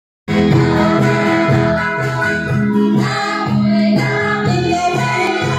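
Dance music with singing and a steady beat, starting abruptly just after the start.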